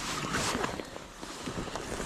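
Jacket fabric rustling against the microphone and snow crunching as someone kneels down in snow. The noise is dense for about the first half-second, then dies down to a few faint scrapes.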